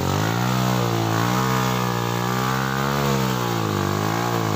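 Dirt bike engine revving up and down under load as the bike is worked up a deep muddy rut, its pitch rising and falling several times.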